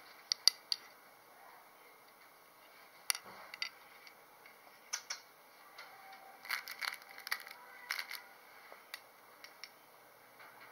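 Scattered light clicks and taps, irregular and sharp, as a wand toy's cord and plush bird toy are flicked and dragged across a hard floor. The taps bunch together a few times, most densely in the second half.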